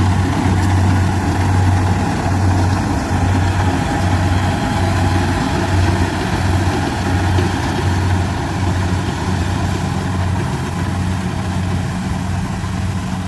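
Kubota rice combine harvester's diesel engine running steadily, a low drone that throbs about once a second.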